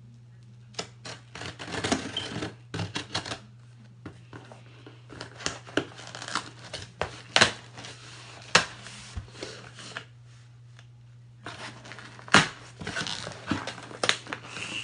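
Packing tape on a cardboard shipping box being cut with a knife and torn open by hand: irregular scrapes, rips and cardboard crackles, with two short pauses.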